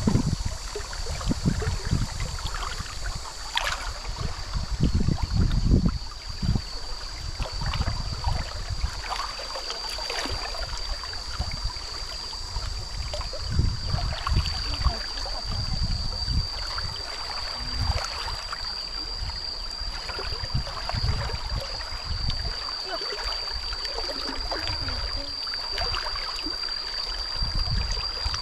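Shallow stream water flowing and splashing as someone wades through it and rummages with a hand under the surface, with repeated low sloshes and thumps. A steady high-pitched tone sounds throughout.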